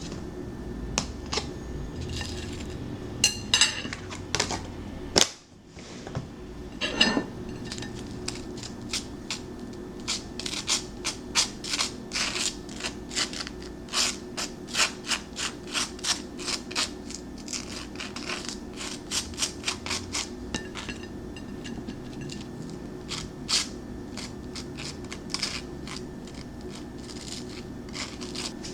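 Kitchen utensils clicking, tapping and scraping while street toast is being made, in quick runs of about three or four taps a second, over a steady low hum.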